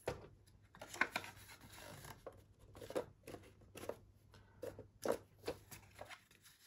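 Hands handling and pressing together a small card-stock box as it is glued: soft paper rustles with a few light taps, the sharpest about a second in and about five seconds in.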